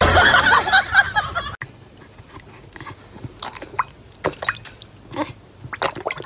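A dog lapping and splashing at water in a bowl, in irregular small slurps and splashes. It is preceded by a loud, rough noise that cuts off suddenly about a second and a half in.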